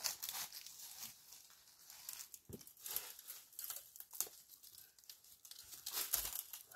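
Irregular crinkling and rustling, like something dry or papery being handled, with a couple of soft knocks.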